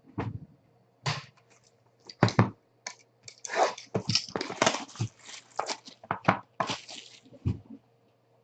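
Trading cards and their plastic sleeves and packaging being handled: irregular rustling, scraping and crinkling, busiest in the middle. A faint steady low electrical hum runs underneath.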